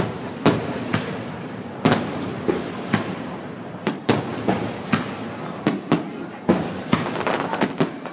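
Fireworks display: aerial shells bursting in an irregular string of sharp bangs, about two a second, each trailing off in a rumbling echo.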